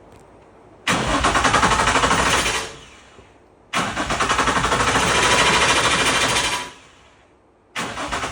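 A 2004 Infiniti G35's engine being cranked by the starter three times, each a rapid even churning that stops without the engine catching. It is a crank-no-start, with no fuel reaching the injectors.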